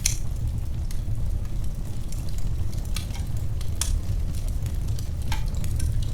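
Wood fire crackling in a fireplace: a few sharp pops and snaps over a steady low rumble of the flames.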